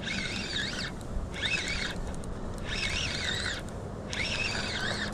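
A songbird singing a run of short, fast warbling phrases, each under a second long, with brief pauses between them, over a steady low hum.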